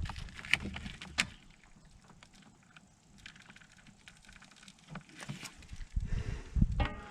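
Scattered sharp clicks and knocks of tools and parts being handled, with a low rumble and more knocks near the end.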